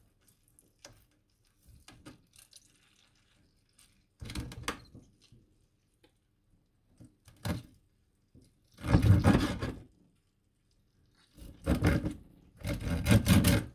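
Kitchen knife cutting through the crispy skin of oven-roasted pork belly and knocking down onto the cutting board, about five separate cuts with pauses between, the longest about nine seconds in.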